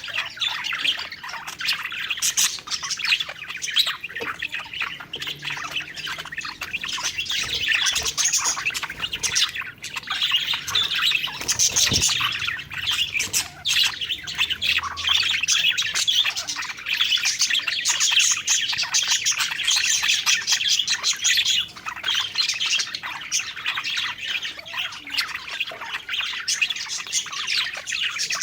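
A flock of budgerigars chirping and chattering without a break, with squawks mixed in, and a single sharp click about halfway through.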